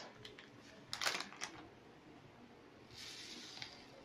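A metal spoon tapping and scraping on a wire mesh sieve while sifting chocolate powder, a handful of light clicks in the first second and a half, the loudest about a second in. From about three seconds in, a soft steady hiss of powder and mesh.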